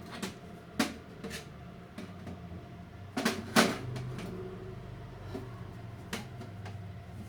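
Scooter belt-drive parts being handled: scattered clacks and knocks, the loudest about three and a half seconds in, over a low steady hum.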